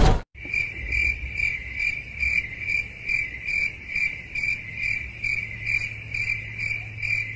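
Cricket-chirping sound effect, the stock 'awkward silence' gag marking a speaker who has no answer: an even, high chirp repeating about twice a second over a low steady hum, cutting in and out abruptly.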